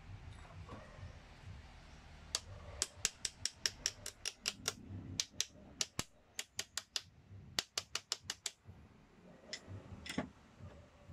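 Ratchet of a band-type piston ring compressor clicking as it is tightened around a piston, squeezing the rings: three quick runs of sharp clicks, about five a second, with a couple of single clicks near the end.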